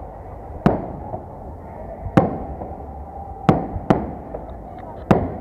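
Victory Day fireworks salute: shells bursting with sharp bangs, five in about five seconds, each dying away quickly, over a steady background rumble.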